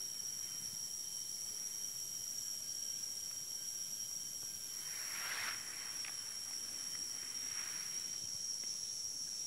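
Steady high-pitched chorus of insects, with two short hissing swells, one about halfway through and a fainter one a couple of seconds later.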